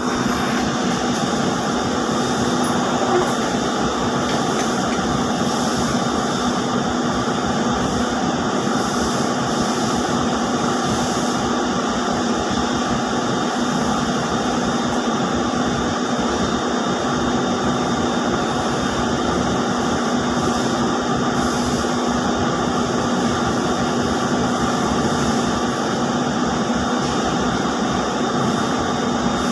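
Steady machine noise with a constant hum and a dense, even whir, typical of ring spinning frames running in a spinning mill.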